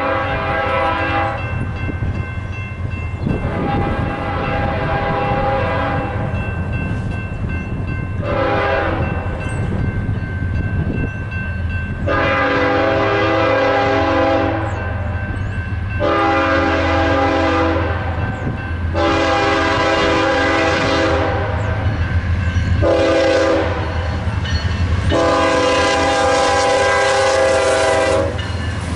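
BNSF diesel locomotive's multi-note air horn sounding the grade-crossing signal, long, long, short, long, twice over, as the train approaches the crossing. The low rumble of the locomotives' diesel engines runs under the horn.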